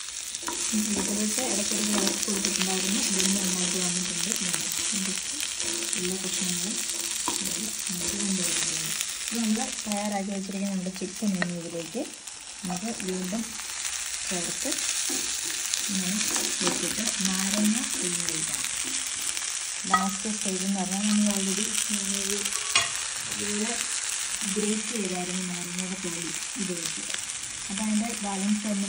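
Chicken pieces and vegetables sizzling in oil in a nonstick frying pan, stirred now and then with a metal spatula, with a couple of sharp taps against the pan. A low steady hum runs underneath and drops out a few times.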